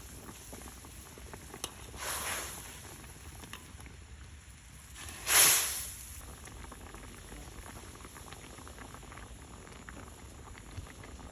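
A pot of water boiling, with a steady fine crackling patter, and two hissing surges, the louder one about five and a half seconds in.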